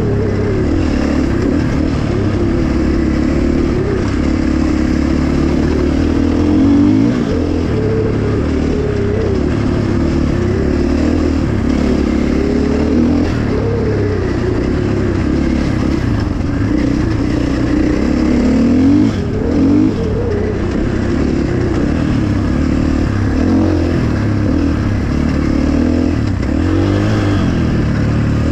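Dirt bike engine running as it is ridden along a dirt track, its note rising and falling as the throttle is opened and eased off, with a few brief revs.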